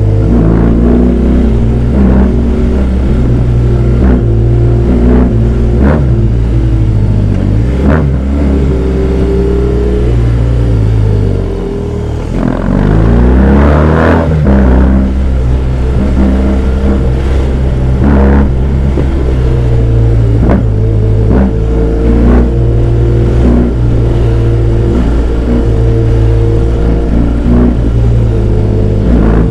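BMW R18's big boxer twin engine running under way, heard from the bike. The throttle closes briefly about twelve seconds in, then opens again and the engine note rises as it accelerates.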